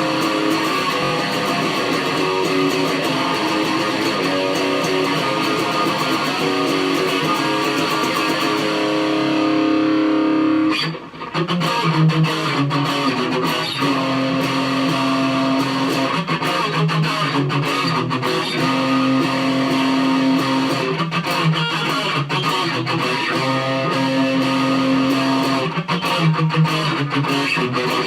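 Electric guitar played solo, picking single notes in a riff that repeats every couple of seconds, with a short break about eleven seconds in.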